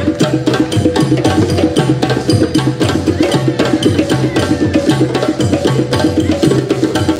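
Live African-style drum ensemble: djembes played by hand together with upright drums struck with sticks, in a fast, steady rhythm of dense strokes.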